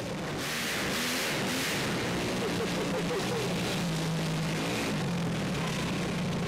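A vehicle engine running steadily at a low, even speed, its pitch wavering slightly.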